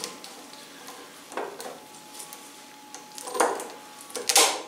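Three short metallic clicks and clinks, the last two louder, as cable pliers work at the worn clutch cable's inner wire at the handlebar lever to snip it off.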